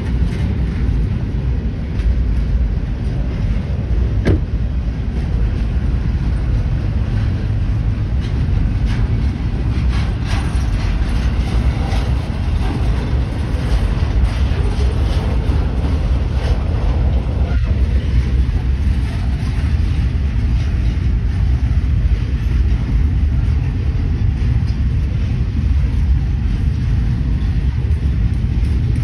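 Double-stack intermodal well cars rolling past: a steady, loud low rumble of steel wheels on rail, with a few sharp knocks, one about four seconds in and another a little past halfway.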